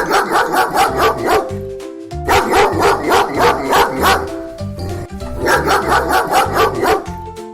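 A dog barking in three quick runs of rapid barks, with a short pause between runs, over background music.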